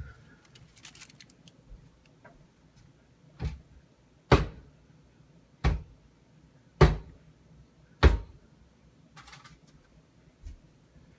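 Mold full of freshly poured cold process soap batter banged down hard five times, heavy thuds about a second apart starting a few seconds in, to settle the batter and bring trapped air bubbles to the surface.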